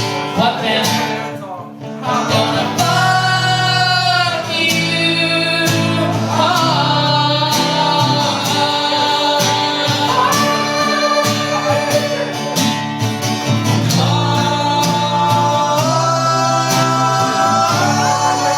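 Live music: acoustic guitar accompaniment under a male voice singing long held notes with vibrato that step up and down in pitch, after a brief dip in loudness near the start.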